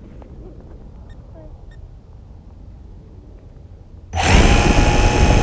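Syma X8W quadcopter's four electric motors and propellers starting about four seconds in: a sudden, loud buzzing whine whose pitch climbs as the motors spin up for takeoff.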